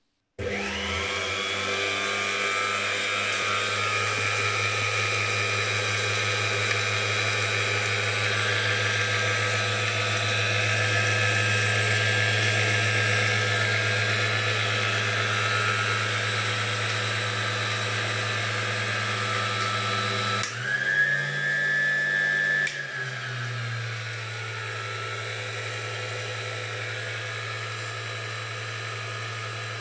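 Zbrojovka Robot Zu1 kitchen machine's electric motor and gearbox, fitted with a new rotor and bearings and fresh gearbox oil, switched on and spinning up in about a second to a steady whine over a low hum. About twenty seconds in the pitch shifts for a couple of seconds, then it settles back, running a little quieter.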